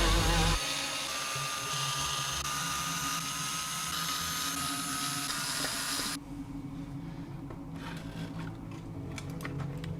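Cordless power screwdriver running steadily with a fixed motor whine, stopping about six seconds in, followed by light clicks of small parts being handled.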